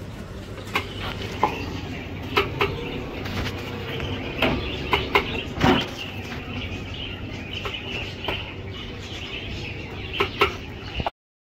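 A steel ladle and spatula clinking and knocking against a stainless-steel container, a dozen or so sharp strikes at uneven intervals over a steady low background hum. The sound cuts off abruptly near the end.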